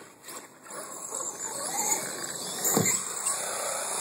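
Radio-controlled truck running and whining as it is driven over jumps, with a single thump about three quarters of the way through.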